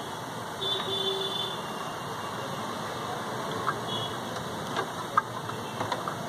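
Steady rushing background noise, with a few short sharp clicks in the second half.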